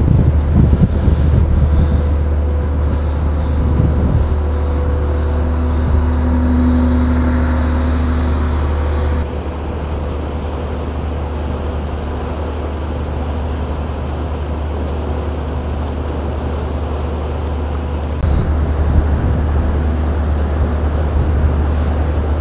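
Steady low rumble of an inland tanker barge moving slowly into a lock chamber. The sound shifts abruptly about nine seconds in and again near eighteen seconds. A faint steady tone sounds briefly around six to eight seconds in.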